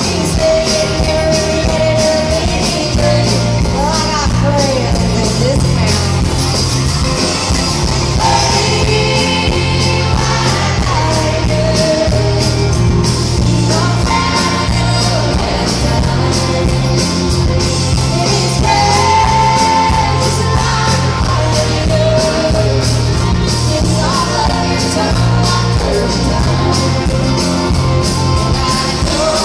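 Live country-rock band playing at full volume: a woman singing the lead over strummed acoustic guitar, electric bass and a steady drum beat, heard through the PA from the audience in a large hall.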